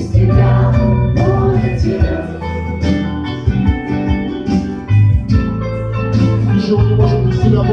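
Live worship song: acoustic guitars strummed under a small group of singers holding a sung line, with a steady low bass.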